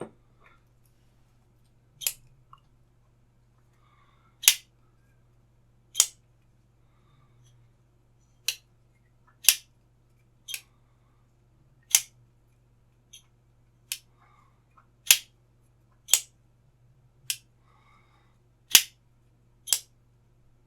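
Hoo Knives V2 slipjoint folding knife being repeatedly opened and closed, its blade snapping into the open and closed positions against the backspring with sharp clicks, about fourteen of them, a second or two apart.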